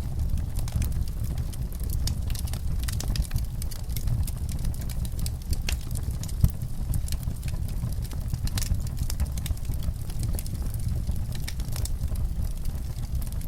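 Wood fire burning in a fireplace: a steady low rumble of flames with many small crackles and snaps throughout, and one louder pop about six and a half seconds in.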